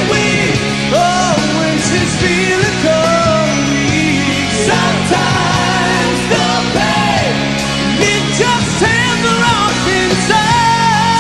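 Live rock band playing a slow power ballad, with electric guitars, bass and drums and lead and backing voices singing over them.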